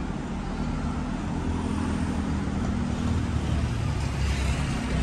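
City street traffic, with a car engine running close by and growing gradually louder.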